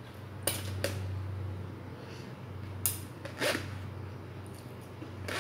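Plastic spoon clicking and scraping against a plastic food container about five times, over a steady low hum.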